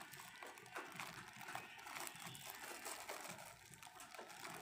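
Faint rustling and crinkling with scattered small clicks: a new microphone and its small tripod stand being handled.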